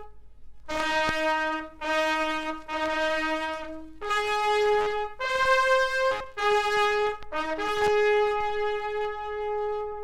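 Japanese military bugle sounding a call: a run of about eight held notes on a few bugle pitches, rising to the highest note about halfway through and ending on a long held note.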